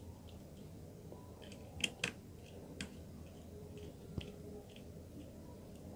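Faint clicks and taps of a wire and the plastic parts of a magnetic contactor being handled as the wire is fitted to its terminal. There are two sharp ticks close together about two seconds in, a lighter one near three seconds and another just after four seconds.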